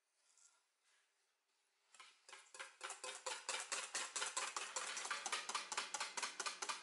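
Wire balloon whisk beating egg whites and sugar by hand in a stainless steel bowl: rapid, even strokes of wire scraping and tapping the metal, about five a second, starting about two seconds in. The whites are being whipped into meringue.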